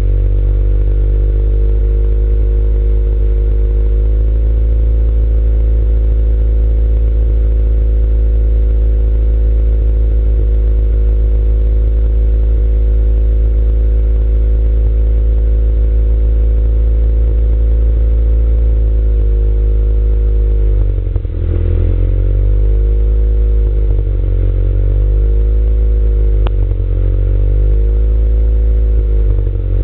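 Engine with a misfire, idling steadily and then revved up and let back down several times in the last third.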